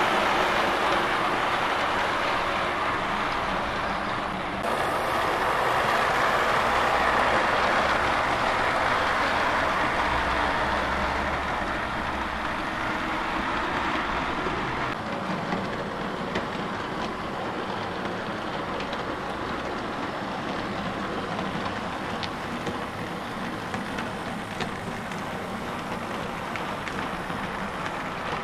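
Model railway pannier tank locomotive and coaches running on the track: a steady whirring rumble of the motor and wheels on the rails, quieter from about halfway through.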